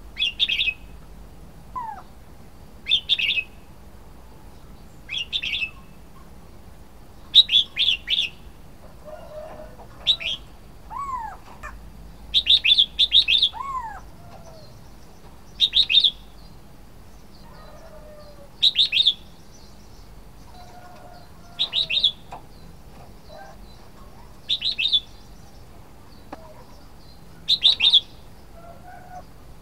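Red-whiskered bulbul singing: short, bright phrases of a few quick notes, repeated every two to three seconds.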